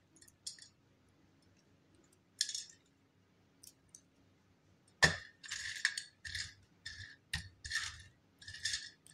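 Brittle flakes of dried multani mitti (Fuller's earth) clinking and rattling against a steel plate as they are peeled and handled. A few faint ticks at first, then from about five seconds in a quick run of louder dry rattles as a hand sifts through the pile of flakes.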